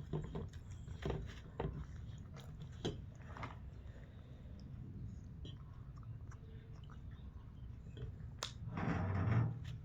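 Chewing food close to the microphone: irregular wet smacks and small clicks of a mouth eating. Near the end a louder, rougher sound lasting about a second.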